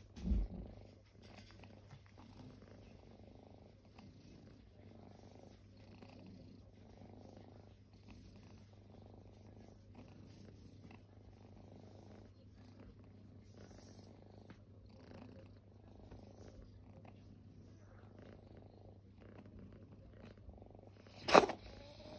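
Kitten purring, a low steady purr that swells and fades in a slow rhythm. A low thump just after the start and a sharp knock about a second before the end, the loudest sound.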